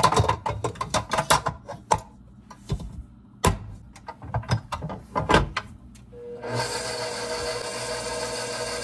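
Clatter and clicks of a stainless steel bowl being fitted and locked onto a bowl-lift stand mixer and the dough hook being attached. About six seconds in, the mixer's motor starts and runs with a steady whine.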